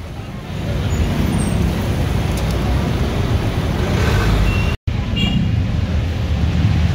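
Street ambience dominated by a steady low rumble of road traffic. The sound drops out for a moment about five seconds in.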